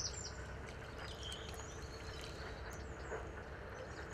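Riverbank ambience: small birds chirping in short high notes over a low steady rumble, with a few faint clicks.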